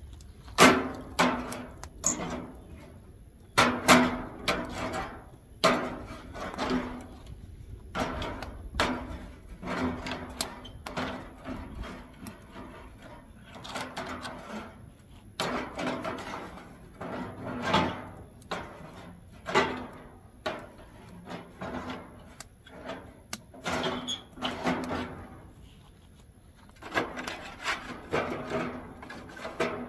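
Irregular wooden knocks and clunks, some loud, as split oak firewood is handled and fed into the steel firebox of an offset smoker.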